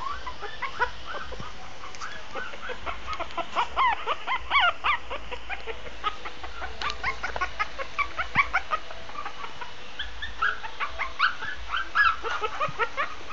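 Shih tzu puppy whimpering in quick, short high-pitched squeaks and yips, several a second, loudest a few seconds in and again near the end.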